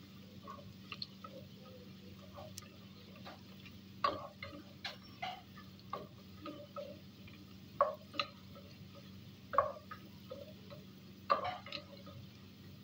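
Wooden spoon scraping and knocking against a pot while stirring onions and garlic frying in oil: irregular clacks every second or two over a low steady hum.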